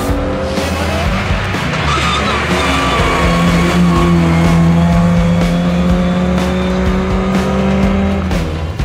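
Škoda Felicia rally car's engine revving hard at speed, rising in pitch near the start, with tyres squealing through a corner, under background music.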